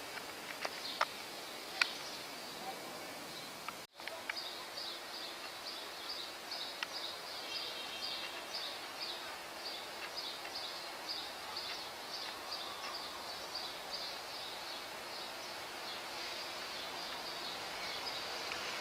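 Outdoor street background noise with a bird chirping rapidly and repeatedly in short, evenly spaced high chirps. A couple of sharp clicks come early, and the sound cuts out for an instant just before the chirping settles in.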